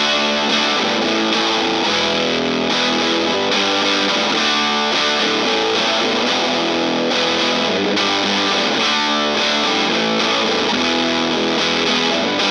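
2016 Gibson ES-335 electric guitar on its bridge pickup, played through an Acorn Circuit Fuzz two-transistor fuzz pedal with the fuzz at noon into an Acorn Hawkins amp. It plays continuously with an overdriven, really cool classic rock sound.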